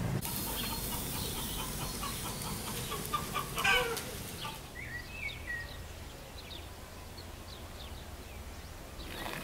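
Chickens clucking in a farmyard, busiest and loudest about three and a half seconds in, then small birds chirping now and then.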